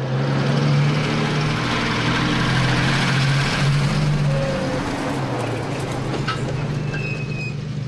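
Truck engine running steadily as the truck and trailer move off, a low hum over road noise that eases off toward the end.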